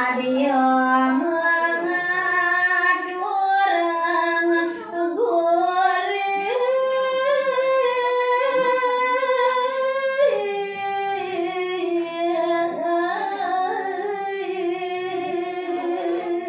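A woman's solo voice singing a Balinese geguritan verse in the pupuh sinom metre, unaccompanied, through a handheld microphone. It moves in long held notes joined by slow ornamented turns, with a long held high note in the middle followed by a drop back down.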